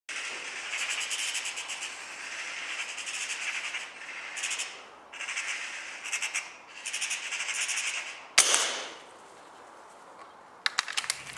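Magpie chattering in several harsh, rapid bursts, then a single sharp gunshot with a short echo about eight seconds in, followed by a few quick clicks near the end.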